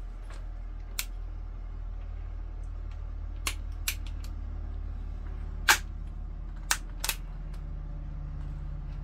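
Scattered sharp metallic clicks from an AR-15 rifle being handled, about six spread through the stretch, the loudest a little past halfway, over a steady low hum.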